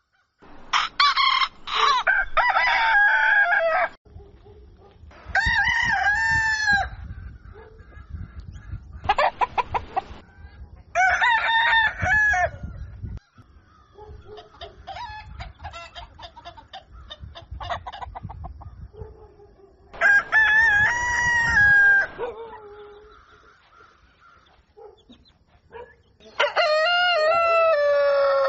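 Roosters crowing about six times, each crow a loud call of a second or two, with softer clucking between the crows.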